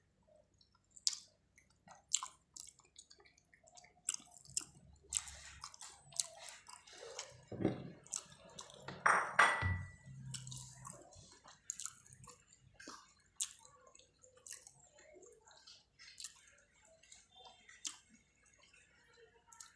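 Close-up eating sounds of spicy chicken feet (ceker mercon) being chewed, with wet mouth noises and many short sharp clicks. There is a louder, busier stretch about eight to ten seconds in.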